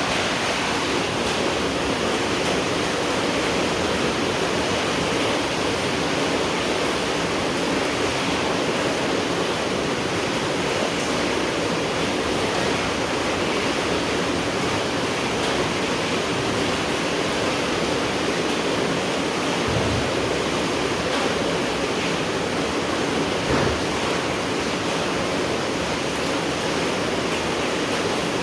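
Steady rainfall, an even, unbroken hiss of rain, with a soft low thump or two partway through.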